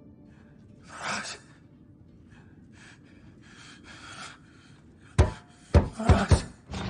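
Quiet, with a short breathy gasp about a second in and a few fainter breaths after it, then four sharp, loud impacts in quick succession near the end.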